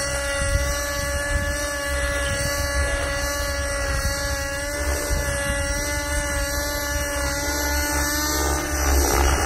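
Nitro RC helicopter's O.S. .55 glow engine with tuned pipe running at steady high speed in flight: an even, buzzing whine with many overtones, over a low, uneven rumble. Near the end it grows louder and rougher.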